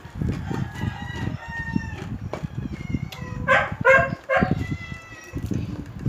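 A rooster crows loudly about three and a half seconds in, over close-up chewing and crunching of crispy pata (deep-fried pork knuckle).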